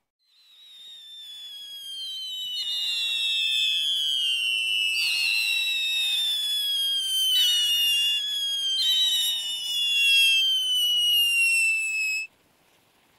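Whistling fireworks: about five long, high whistles start one after another, each sliding slowly down in pitch and overlapping the next, over a faint hiss. The sound builds up over the first couple of seconds and cuts off abruptly near the end.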